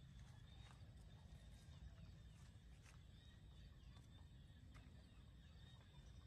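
Near silence: faint outdoor background with a low rumble, a thin steady high tone and a few scattered faint clicks.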